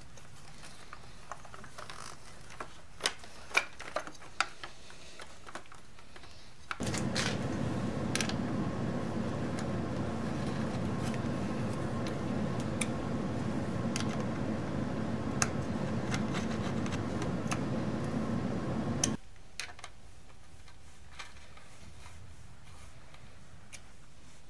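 Light clicks and taps of hands and a hex key working on motorcycle headlight-cowl mounting hardware and wiring. Partway through, a steady mechanical hum starts suddenly, runs for about twelve seconds and stops just as suddenly.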